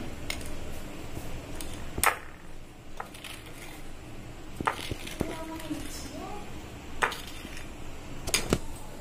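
Utensils knocking and scraping against a glass bowl of buttercream frosting: scattered sharp clicks, about eight in all, as a whisk and then a plastic spatula work the frosting.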